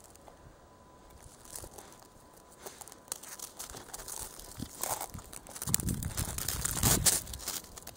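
Crunching and crinkling in the snow from a chow chow puppy pawing and nosing at the ground. It is quiet at first, then grows louder and rougher in the second half.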